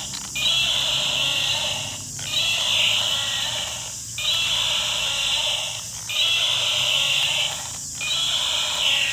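Battery-operated toy dinosaur playing its recorded roar, repeated about five times, each roar close to two seconds long with short pauses between.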